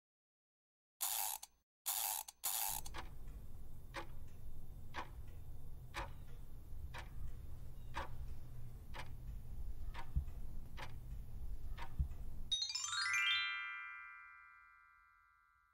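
Quiz countdown sound effects: three short noise bursts as the options appear, then a clock ticking about once a second for about ten seconds over a low rumble. The ticking ends in a rising chime that rings out as the answer is revealed.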